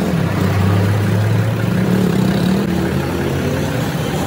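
A motor vehicle's engine running steadily, its pitch wandering slightly up and down.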